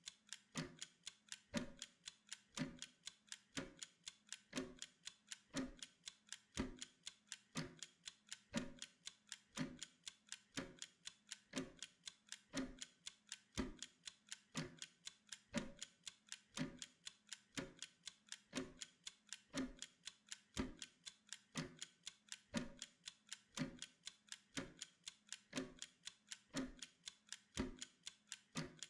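A wind-up kitchen (pomodoro) timer ticking fast and steadily, with a stronger, deeper tick about once a second: the timer counting down a work interval.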